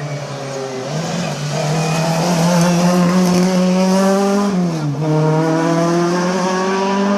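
Classic rally car's engine revving hard as it comes close, its pitch climbing through a gear, dropping sharply at an upshift about four and a half seconds in, then climbing again.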